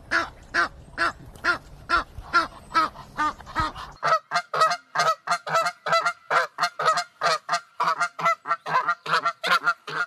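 Geese honking repeatedly in short, evenly spaced calls. About four seconds in, a low background rumble drops out and the honks come quicker, at about three a second.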